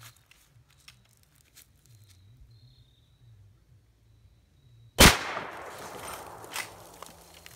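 A single .45-70 rifle shot about five seconds in: one loud report with a long echoing decay, followed by a sharp click about a second and a half later. A few faint clicks come before the shot.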